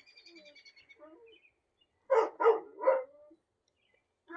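A dog barking three times in quick succession.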